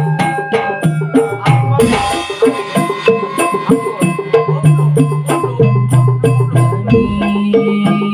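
Patrol-style percussion music: fast, even wooden knocks and shaker rattles over held low bass notes that change pitch every second or two, with a crash-like splash about two seconds in.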